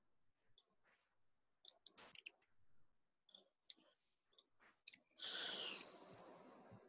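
A few scattered faint clicks, then a louder burst of hissing, rustling noise starting about five seconds in and fading away over almost two seconds.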